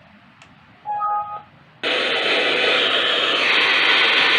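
Small Bluetooth speaker's built-in FM radio: a two-tone beep about a second in, then loud radio static hiss from about two seconds in that cuts off abruptly at the end.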